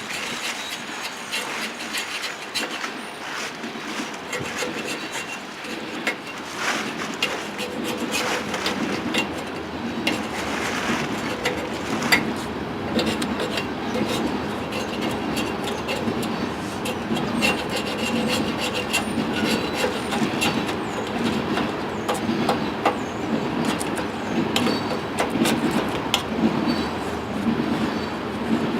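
Continuous scraping and rubbing on metal, with scattered clicks and knocks: hand work on a snow plow's iron handle fittings.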